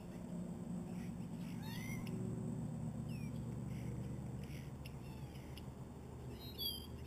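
Short, curving bird calls: one about two seconds in, another around three seconds, and a sharper pair near the end, over a low steady hum that swells during the first two seconds.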